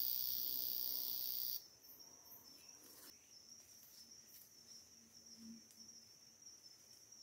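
Forest insects calling: a loud, dense high-pitched buzz that cuts off suddenly about a second and a half in, leaving a quieter, steady high trill.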